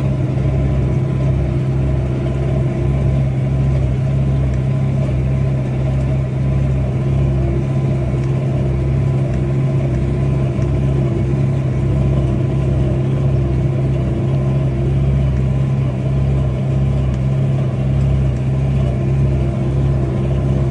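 Tractor engine running steadily under load while pulling a Massey Ferguson 1842S small square baler, with a regular low beat from the baler about one and a half times a second.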